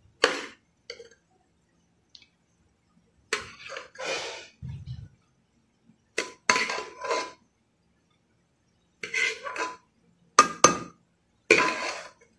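Metal spoon clinking and scraping against the side of a metal cooking pot in irregular strokes while spreading a layer of boiled rice, with a dull thump about five seconds in.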